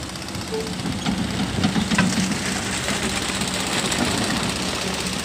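Kobelco hydraulic excavator's diesel engine running steadily as the machine works its boom and arm, the engine sound swelling under load between about one and three seconds in.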